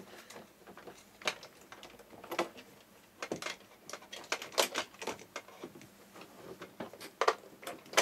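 Irregular clicks and light knocks of hands handling cables and plugs, reconnecting an oscilloscope's unplugged power supply. About half a dozen separate sharp clicks come at uneven intervals.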